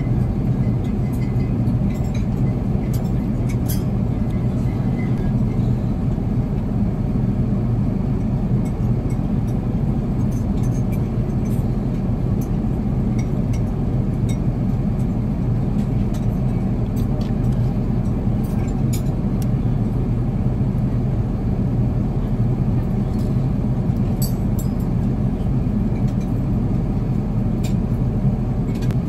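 Steady low drone of an Airbus A380 passenger cabin in flight, with faint scattered clinks of cutlery on china.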